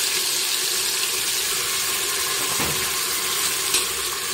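Ground onion, chilli and coriander masala paste sizzling steadily in hot oil in an aluminium pressure cooker, freshly added and starting to fry.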